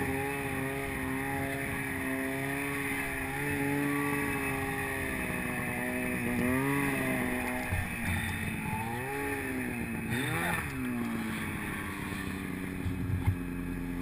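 Snowmobile engine running under throttle through deep powder snow, its pitch rising and falling as the throttle is worked, with a quick drop and climb about ten seconds in.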